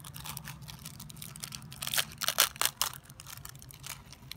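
Crinkling and crackling of a small plastic Orbeez packet handled by a child's fingers as it is torn open and tipped out, with a cluster of louder crackles about two seconds in.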